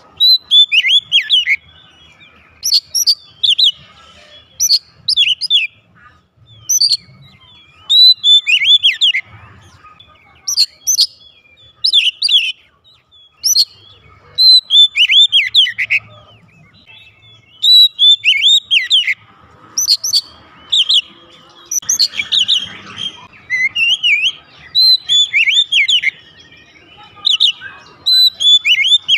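Oriental magpie-robin singing loudly in short, repeated phrases of clear whistles and quick downward-sweeping notes, with brief pauses between phrases.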